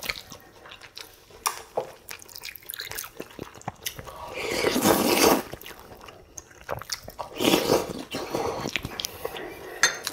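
Close-miked eating: chewing and small wet smacks with light clicks of cutlery, and two longer wet slurps, about four and seven and a half seconds in, of greens and broth from thistle doenjang soup being sucked in.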